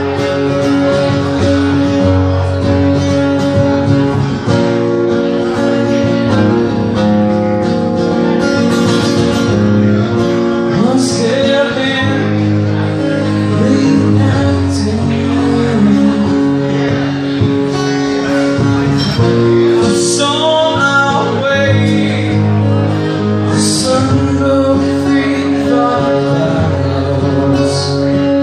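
Live band music: a man singing lead over two strummed acoustic guitars.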